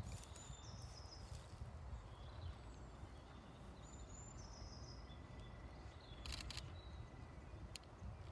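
Faint birdsong: a short, high whistled phrase repeated about every four seconds, over a low rumble.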